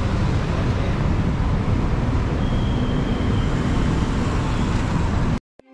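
Steady road traffic noise, heaviest in the low end, that cuts off suddenly near the end.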